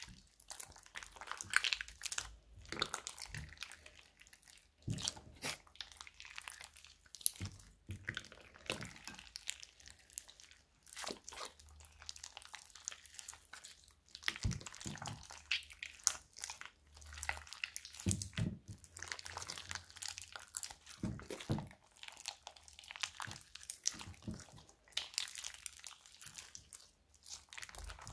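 Hands kneading and squeezing a large sticky slime: a dense run of irregular wet crackles, snaps and squelches as the slime is pressed, folded and pulled apart.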